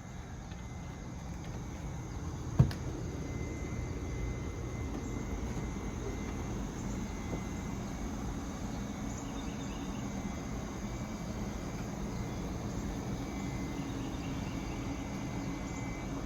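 Steady outdoor background noise: a low rumble with a faint, steady high insect-like drone, broken by one sharp knock about two and a half seconds in.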